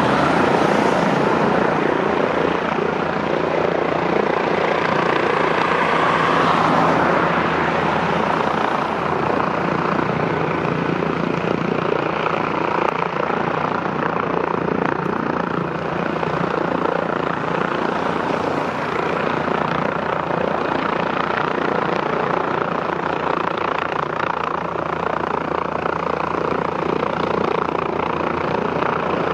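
AgustaWestland AW169 twin-turboshaft helicopter hovering low and slowly descending, its rotors and engines making a steady, even noise.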